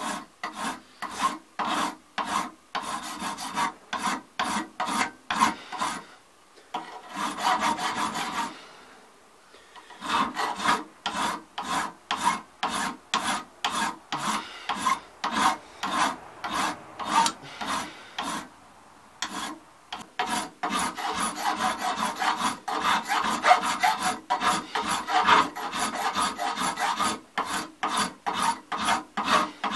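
Bastard file rasping across a cast brass rifle butt plate, about two strokes a second, stopping briefly a few times; the file is taking down the stub of the casting sprue.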